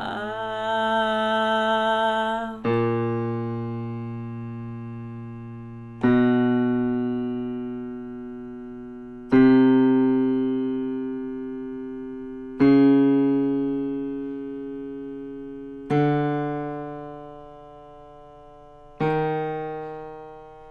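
Piano notes of a vocal warm-up exercise, struck about every three seconds and left to ring out, each a step higher than the last. A held note ends about two and a half seconds in, before the first strike.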